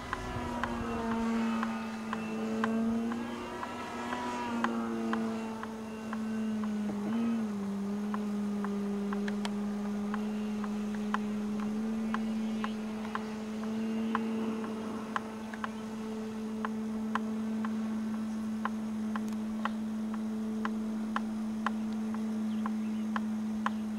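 Electric motor and propeller of a Great Planes Revolver Bipe EP radio-controlled biplane flying overhead, buzzing at a nearly steady pitch that dips briefly about seven seconds in. Faint sharp ticks are scattered through it.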